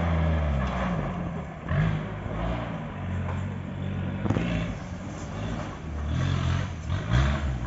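An off-road jeep's engine revving, its pitch rising and dropping again and again as the throttle is opened and eased.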